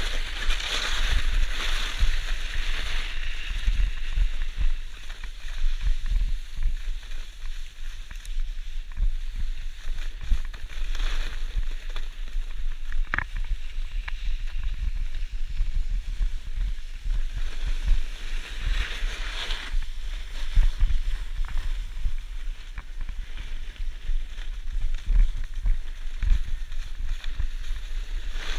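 Wind buffeting the microphone in low thumps over the steady hiss and scrape of a snowboard sliding on packed snow; the scraping swells several times, with peaks about a second in, around eleven seconds and around nineteen seconds.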